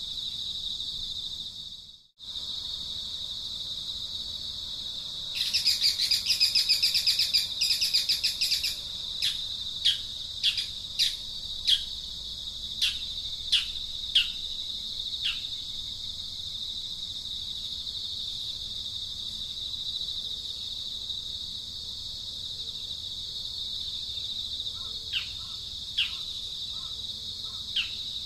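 Insects shrilling steadily at one high pitch, with a bird chattering rapidly for a few seconds about five seconds in, then giving a series of short, sharp downward-sliding chirps, and a few more near the end. The sound drops out briefly about two seconds in.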